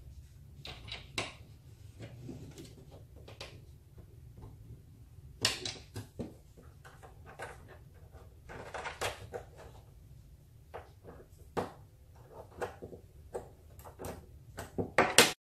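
Irregular clicks and knocks of a socket wrench, Allen wrench and bolt hardware against the MDF foosball table frame as the leg bolts are tightened, over a low steady hum. The loudest knocks come near the end, and the sound then cuts off abruptly.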